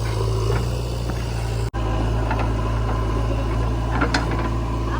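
Heavy diesel engine running steadily at a low, even idle, with a brief gap in the sound about two seconds in and a couple of light clicks near the end.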